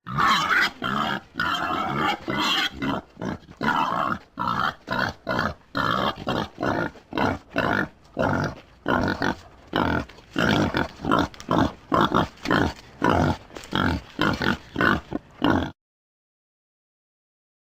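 Wild boar grunting and squealing in a fast run of short calls, about two a second, cutting off suddenly near the end.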